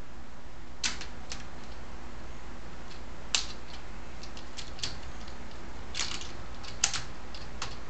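Hard plastic toy parts clicking and tapping as a large Transformers Optimus Prime figure's arm and gun are moved and repositioned by hand: about eight short, scattered clicks over a steady low hum.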